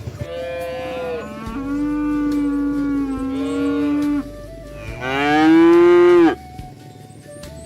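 Cattle mooing: one long, drawn-out moo lasting about four seconds, then a shorter, louder moo about five seconds in that rises in pitch and breaks off.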